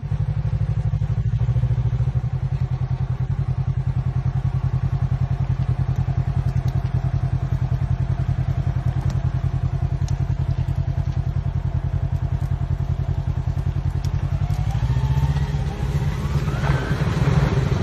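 Side-by-side UTV engine running low and steady with a rapid, even pulse as the machine crawls on oversized tires. It revs up with a rising pitch about fifteen seconds in.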